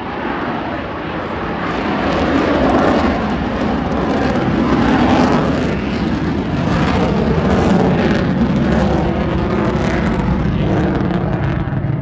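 Very loud jet noise from an F-35C Lightning II's single F135 turbofan engine with the fighter in flight: a dense, rough rush that swells over the first few seconds and fades near the end.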